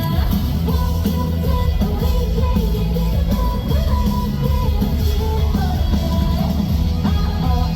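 Live rock band playing loudly, with bass, drums and guitar under a sung female lead vocal.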